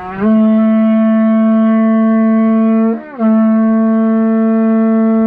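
Horagai, a Japanese conch-shell trumpet, blown in a long steady note; about three seconds in it breaks off with a brief dip in pitch, then a second long note follows.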